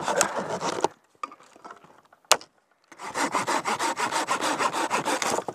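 Folding pruning saw cutting through a dry dead branch with rapid back-and-forth strokes. It pauses about a second in, with a single sharp click during the pause, then saws on from about three seconds in.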